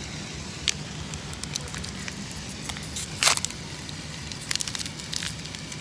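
Plastic candy wrapper crinkling and crackling in the fingers as a wrapped sweet is opened: scattered sharp crackles, one louder about three seconds in and a quick run of them near the end.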